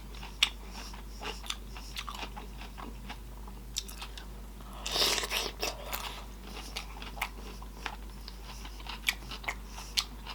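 Close-miked eating of butter-sauced sausage: wet chewing with many short mouth clicks and lip smacks, and one louder, longer wet sound lasting under a second about five seconds in.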